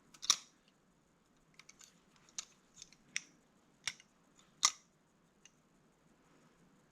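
Balisong (butterfly knife) being handled, giving scattered sharp metallic clicks, about five louder ones at uneven intervals with a few faint ticks between.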